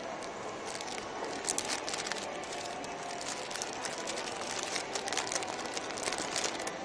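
Thin clear plastic food bag crinkling as hands pull it open, an irregular run of crackles.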